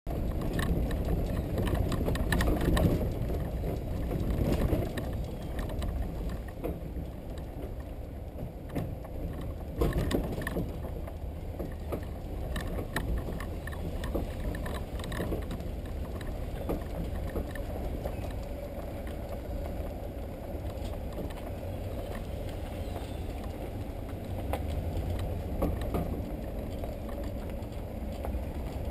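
Boat on its trailer being towed slowly down a gravel road: a steady low rumble with scattered knocks and rattles of the trailer and hull, one harder jolt about ten seconds in.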